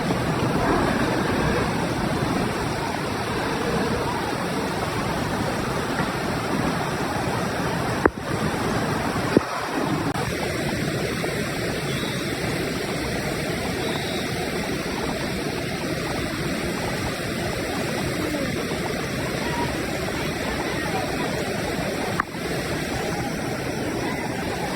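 Floodwater of a swollen river rushing steadily. Two sharp clicks come about eight and nine seconds in.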